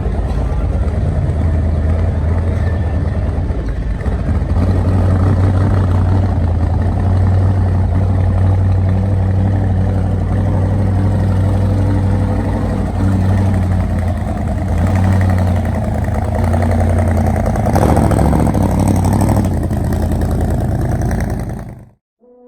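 A loud hot rod engine running at a steady low speed, with small shifts in pitch, cutting off suddenly near the end.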